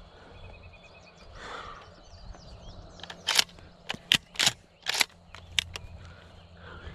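A freshly shot wild turkey gobbler flopping in the grass, its wings beating against the ground in a quick, irregular run of about eight loud flaps starting about halfway through. Small birds chirp faintly in the background.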